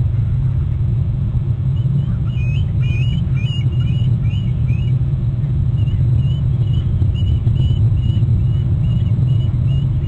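Bald eagles calling in a rapid series of short, high, thin notes, about two a second, starting about two seconds in, over a steady low rumble.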